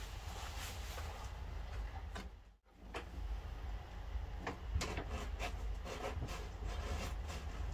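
Scattered light clicks, taps and rubbing of objects being handled, over a steady low hum. The sound cuts out briefly about two and a half seconds in.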